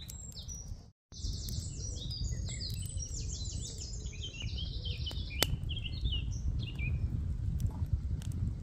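Small birds singing, a quick run of many chirps, over a steady low rumble and a few sharp crackles from a wood fire burning hard in a stainless steel camp stove. The sound drops out briefly about a second in.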